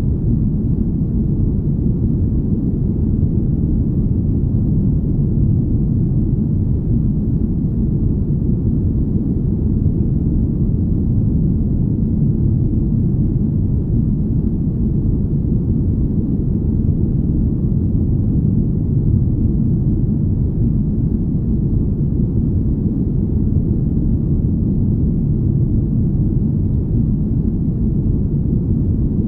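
Deep, smooth, steady rumble noise, presented as the hum of a spaceship. It has no distinct tones, beats or changes in loudness, and its weight sits in the deep bass.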